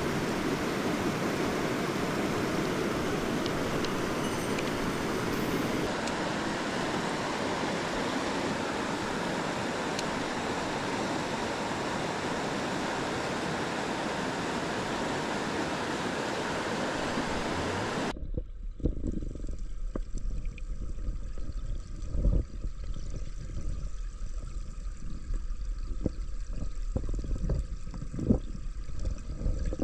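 Clear mountain stream rushing over rocks, a steady hiss of water. About two-thirds of the way through the sound suddenly turns muffled and dull, with a low rumble and scattered knocks and bubbling, as it is heard from under the water.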